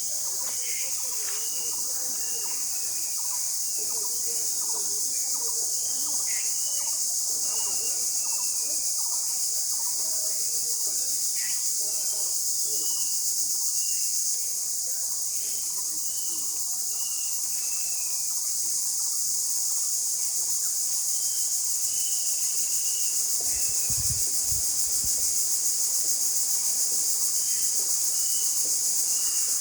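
A dense insect chorus, crickets or cicadas, keeping up a steady high-pitched drone, with short high chirps repeating over it.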